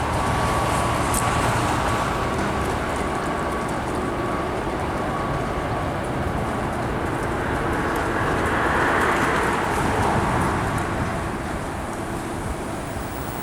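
Train running past on the rails, a continuous rumble and wheel noise that swells about eight to ten seconds in, with a thin steady whine over the first few seconds.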